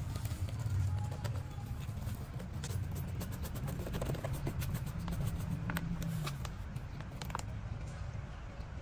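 Hands handling a plastic bottle and cup while packing loose soil: scattered sharp clicks and crackles of plastic and soil. Underneath runs a low steady rumble.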